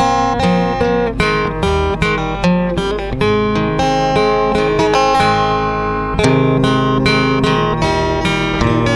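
Yamaha cutaway acoustic guitar played fingerstyle: a picked melody over held bass notes, in a steady run of plucked notes.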